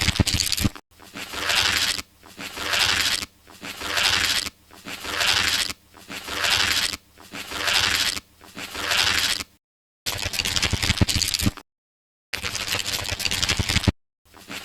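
A book's paper pages riffled quickly past the thumb in repeated passes, each a rustling, flapping run about a second long, about one a second, with a few brief silent gaps between passes.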